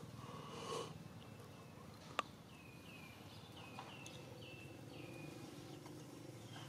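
About eight short, high chirping calls, each sliding down in pitch, come one after another from about a second in to about five seconds in, over a steady low hum. A single sharp click about two seconds in is the loudest sound.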